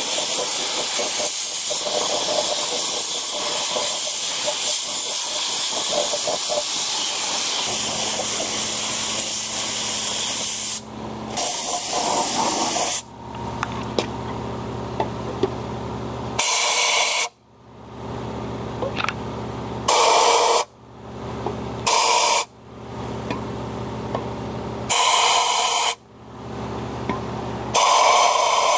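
Compressed-air siphon-cup spray gun spraying WD-40 onto a bare engine block: a long continuous hiss, then about six short bursts a few seconds apart. A steady low machine hum starts about eight seconds in and runs under the bursts.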